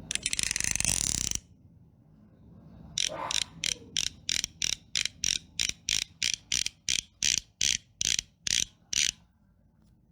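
A short loud burst of hissing noise, then, after a pause, a mechanical ratchet clicking about twenty times, the clicks spreading out from about four a second to about two a second before stopping.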